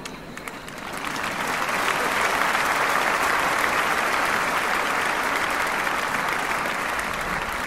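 Audience applauding, swelling up about a second in, holding steady, then easing slightly near the end.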